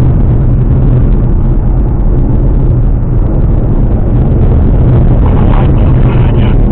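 Ford Mustang cruising at steady speed: a steady low engine drone mixed with road and wind noise.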